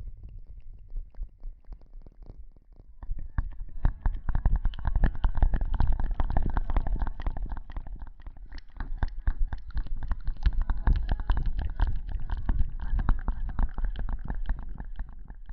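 Close-miked ASMR rustling: dense fine crackling over a low rumble, growing louder about three seconds in and easing off near the end.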